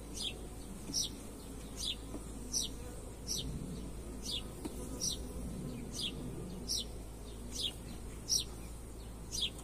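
Honeybees humming steadily around an open hive under inspection. Over it a bird repeats a short, high call that falls in pitch, a little more than once a second.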